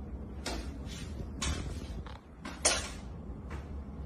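A dog's paws scraping and knocking plastic containers and a bowl about on a kitchen counter: several short scrapes and knocks about a second apart, the loudest about two-thirds of the way in.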